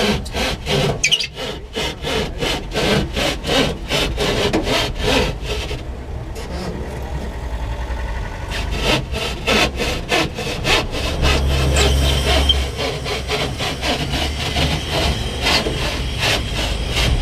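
Hand saw cutting through a wooden board in quick, regular back-and-forth strokes, about three or four a second. It pauses about six seconds in, then resumes in shorter runs. A low rumble comes in briefly past the middle.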